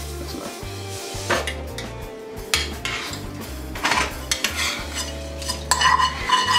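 Sesame seeds pouring into a dry-toasting skillet, then a metal spoon stirring them and scraping and clinking against the pan. The clinks and scrapes come in ones and twos at first and grow busier near the end.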